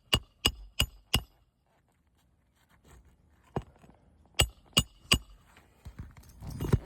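Hammer driving roofing nails into an asphalt shingle: four quick ringing strikes, a pause of about two seconds, then four more.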